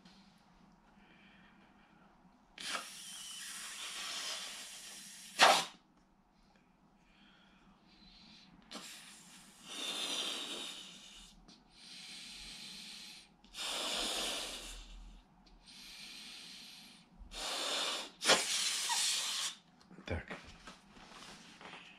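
A rubber balloon being blown up by mouth: several long breaths rush into it, one after another with short pauses between. There is a sharp puff about five seconds in and another near eighteen seconds.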